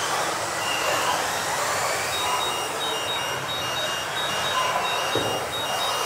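Electric RC off-road racing cars running hard, giving a steady mix of motor whine and tyre noise. From about two seconds in, a high electronic beep repeats roughly twice a second.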